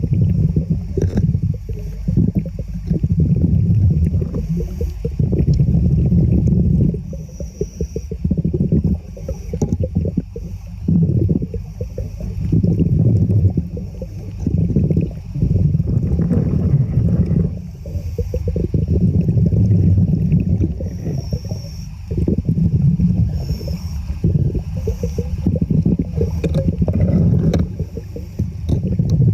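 Muffled sloshing and gurgling of moving water heard under water, low and rumbling, coming in surges every second or two.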